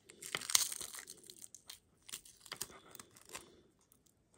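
Adhesive tape being pulled and pressed around two stacked battery packs, crackling and crinkling. The crackle is densest about half a second in, then comes in scattered bits.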